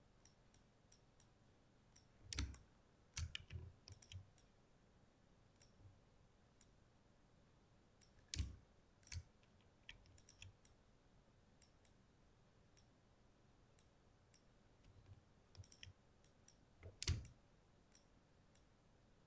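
Irregular computer mouse clicks over near silence, a few louder ones about two, eight and seventeen seconds in.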